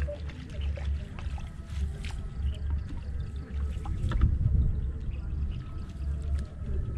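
Low, gusting rumble of wind on the microphone, over light splashing and trickling as hands grope through shallow water among the grass.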